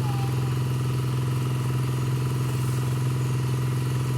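Small engine running at a steady speed, a constant low drone that holds unchanged throughout.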